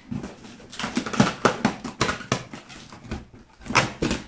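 Cardboard box flaps being pulled and pried open by hand: a run of crackles, scrapes and short tears, with the loudest tear near the end.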